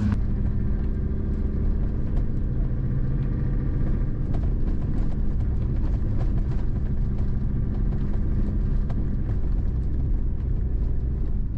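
Truck engine running steadily, a continuous low rumble and hum.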